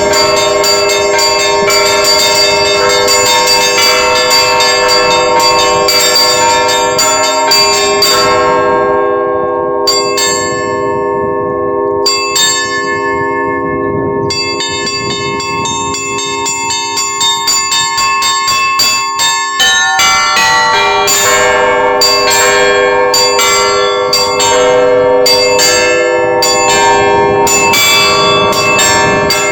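Russian Orthodox monastery bells rung in the "Petersburg" style (Petersburg zvon), a peal calling to the all-night vigil. Quick strikes on small high bells sound over the long ringing tones of larger bells. The high strikes thin out about eight seconds in, and the full peal returns about twenty seconds in.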